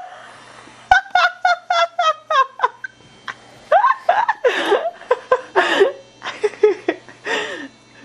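A person giggling: a quick run of short high-pitched laughs, about seven a second, then longer, breathier bursts of laughter falling in pitch.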